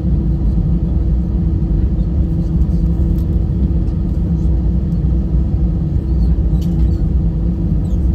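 Steady low rumble inside the cabin of an Airbus A320 rolling on the ground just after landing, with a steady engine hum and a few faint ticks.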